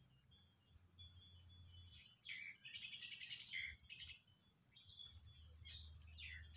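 Faint wild bird calls: a burst of rapid chirps about two seconds in, then a few short down-slurred notes near the end, over a steady thin high tone.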